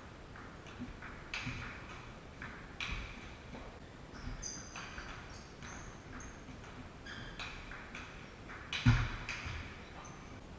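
Table tennis rally: the celluloid ball clicks off the rubber paddles and the table in a quick back-and-forth, with a few short high squeaks and a loud thump about nine seconds in.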